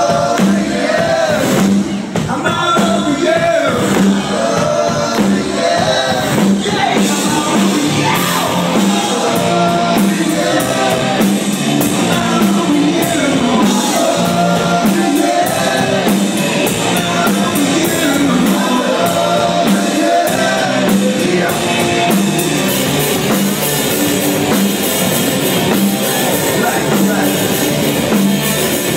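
Live rock band playing a song with a lead vocalist singing, amplified guitars and drums, recorded from the audience.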